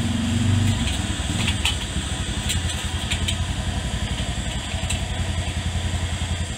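An engine idling with a low, even pulse. A few light clicks of metal cookware being handled are heard over it.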